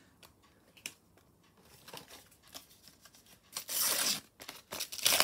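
A Panini sticker packet's paper wrapper being torn open by hand: soft rustles and clicks, then two loud rips near the end, about a second apart.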